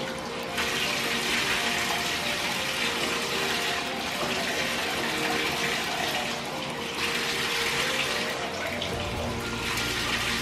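Water running in a bathtub, its hiss swelling and easing in spells of a few seconds, as when a dog is bathed and rinsed.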